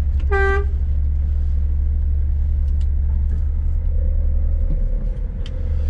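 Scania S500 truck's engine running, a steady low rumble, with a short flat high tone about half a second in.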